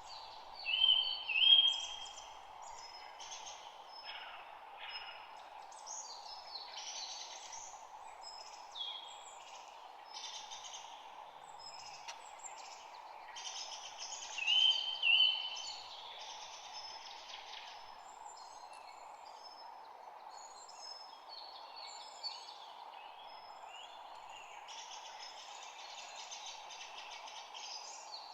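Several songbirds singing and calling in a spring chorus of short chirps and trills. A louder two-note call stands out about a second in and again about halfway through. A steady background noise runs underneath.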